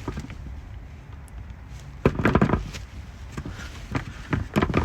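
A few short knocks and clatters, in a cluster about two seconds in and a few more near the end, over a low steady rumble.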